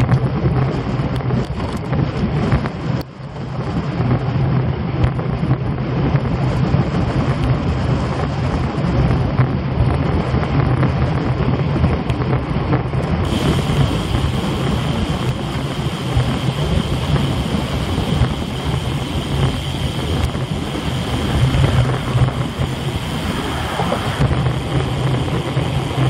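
Wind buffeting the microphone of a bicycle-mounted camera, a steady low rumble with road and tyre noise, as a road bike rides at speed. It dips briefly about three seconds in. From about halfway the hiss gets brighter and a steady high whine joins it.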